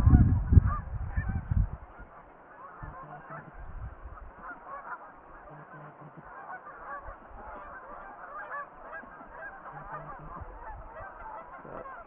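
A flock of Canada geese honking, many short calls overlapping without a break. A loud low rumble on the microphone covers the first two seconds.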